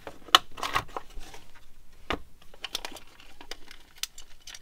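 Clear plastic blister pack of a diecast toy car being pried and peeled open by hand: a run of irregular crackles and sharp clicks, the loudest about a third of a second in.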